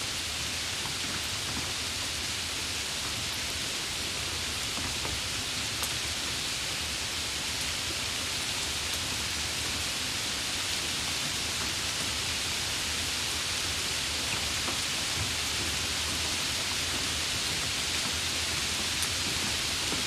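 Steady heavy rain falling, an even hiss with a few faint drop ticks now and then.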